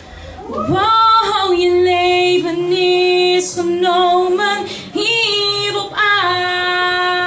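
A young woman singing into a handheld microphone, amplified through a PA speaker, holding long notes in several phrases with short breaks between them.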